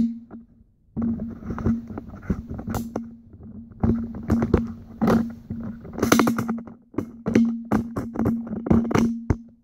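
Telescoping legs of a collapsible camera tripod being pushed shut by hand: irregular clanging and clicking knocks, many of them in quick clusters.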